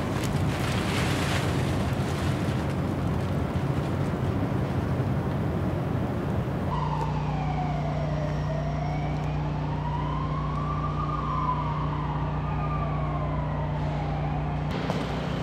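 Steady urban background noise with a low hum. About seven seconds in, a steady low drone sets in, and above it a single wailing tone slowly falls, rises and falls again, like a distant siren, fading out near the end.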